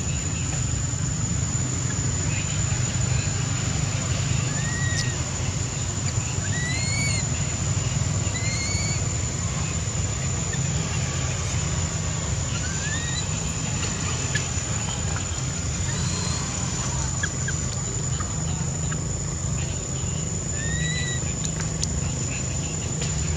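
A baby long-tailed macaque gives short, high squeaks that rise and fall, about half a dozen of them spaced a few seconds apart. They sound over a steady low rumble and a constant high-pitched whine.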